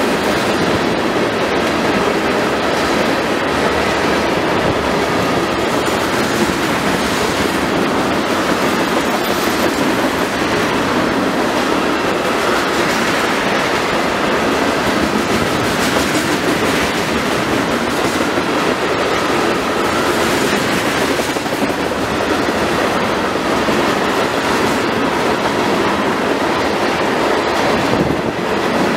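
Railroad cars rolling past at close range, steel wheels clattering over the rails in a steady, continuous rumble.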